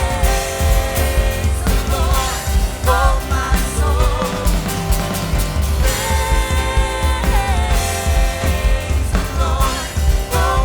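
Live worship band playing a rock-style praise song with drums, bass, synth, guitar and piano, in a passage without clear sung words.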